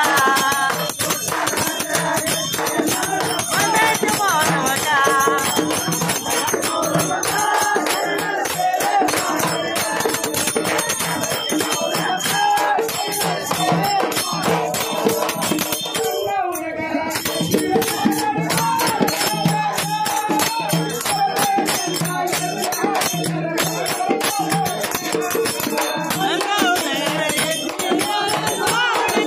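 Loud folk music for Muharram. A dense, rapid rattling percussion runs throughout, with a wavering melody line over it and a steady low pulse.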